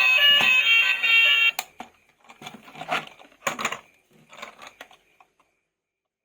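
Loud electronic tones at several shifting pitches cut off abruptly about a second and a half in, followed by scattered plastic clicks and rattles of toys being handled that fade out.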